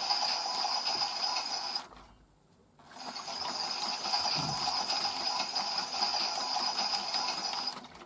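Theo Klein toy Miele W1 washing machine running its wash cycle with a steady whirring, stopping for about a second about two seconds in, then starting again: the pause between reverse tumbles of the drum.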